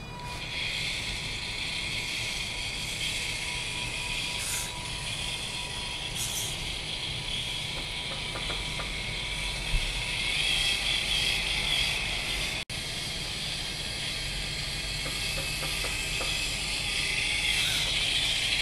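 Small electric drive motors and gearboxes of a homemade four-wheel-drive, four-wheel-steering RC car whirring steadily and high-pitched as it drives and turns on concrete.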